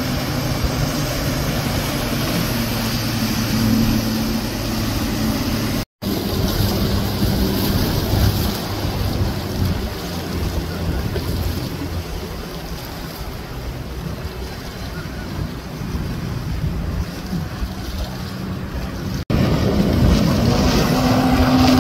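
Outboard boat motors running through choppy water, their steady drone mixed with splashing and wind buffeting the microphone. The sound cuts out briefly twice, about six seconds in and near the end. After the second cut a jet ski runs louder, its engine pitch rising.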